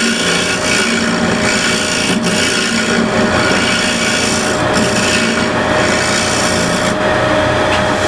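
Woodturning scraper with a burr rolled on by a screwdriver, cutting the inside of a spinning bowl: a continuous scratchy rasping of wood. It runs over the steady whine of the lathe's motor.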